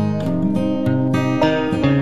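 Background music led by acoustic guitar, with chords changing every half second or so.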